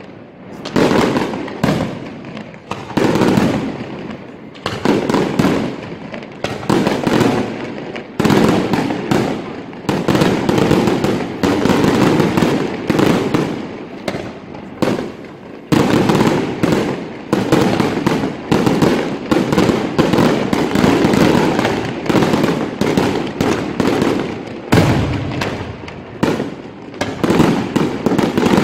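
Daytime fireworks barrage: aerial shells bursting overhead in quick succession, loud bangs about once a second with crackling between them.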